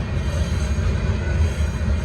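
Union Pacific gravel train's freight cars rolling past, a steady heavy low rumble.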